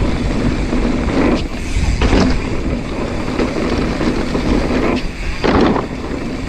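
Wind rushing over the microphone and mountain bike tyres rolling over dirt while riding, a steady loud rumble with a few short louder scuffs about a second and a half, two seconds and five and a half seconds in.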